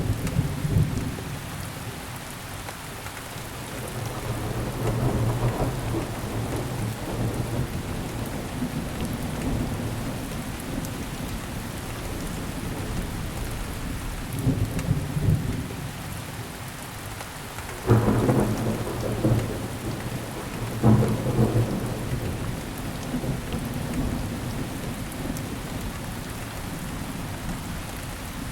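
Steady rain falling, with thunder rumbling low several times. Two sharper, louder claps come about three seconds apart, two-thirds of the way through.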